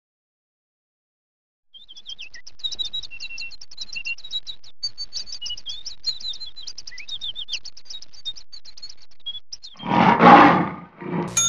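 Birds chirping: a dense run of rapid, high chirps and short whistles that starts after a second or two of silence. Near the end two loud, noisy bursts cut in, about a second apart.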